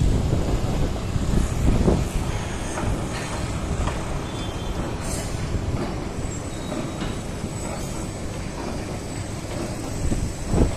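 Steady low rumble of city traffic heard from high above, a continuous noise with no single event standing out.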